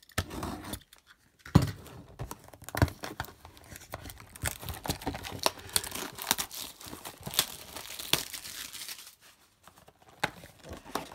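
Plastic shrink wrap being torn open and peeled off a cardboard trading-card box by hand, crinkling and crackling in a dense, irregular run of small clicks.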